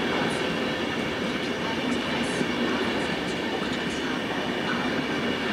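ÖBB railjet passenger coaches rolling slowly past: a steady rumble of wheels on rail with a few faint, short high clicks.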